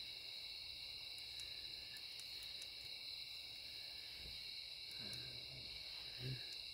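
Steady chorus of night insects, a constant high buzzing in several bands. A couple of short, low sounds come near the end.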